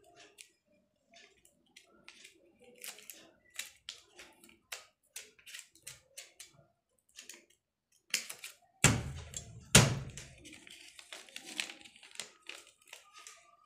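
Large steel scissors snipping through folded glossy paper, a run of short sharp snips about two a second. About nine and ten seconds in come two loud thumps, followed by paper rustling as the sheet is handled.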